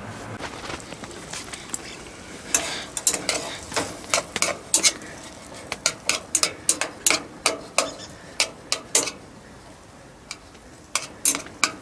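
Metal chopsticks clicking and scraping against a small metal camping frying pan as bite-size meat is stirred: a quick run of sharp clicks, a pause, then a few more near the end. The meat is not sizzling, because the pan is not hot enough, which the cook puts down to wind and low air temperature.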